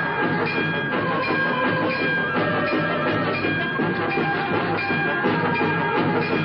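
A train running on the soundtrack: a steady, dense rhythmic clatter under background music.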